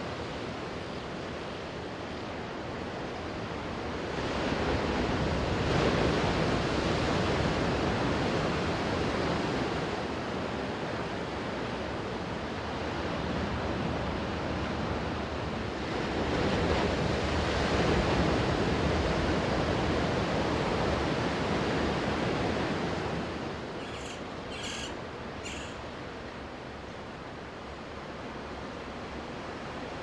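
Small sea waves washing onto a sandy beach: a steady wash that swells twice and then eases off. About three-quarters of the way in come three short high-pitched sounds.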